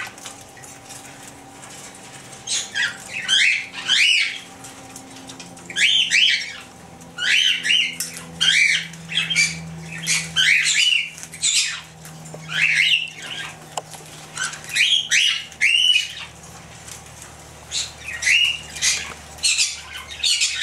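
Cockatiels calling: many short squawks and chirps, each sweeping up or down, in bursts with brief gaps between, over a faint steady low hum.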